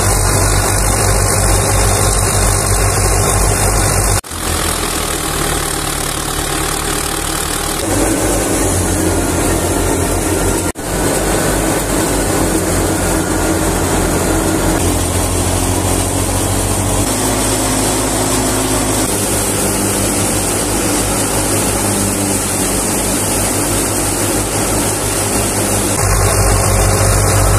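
Tractor diesel engine running steadily under load while belt-driving a wheat thresher, with the thresher running alongside it. The sound breaks off abruptly twice, about four and eleven seconds in, and comes back changed.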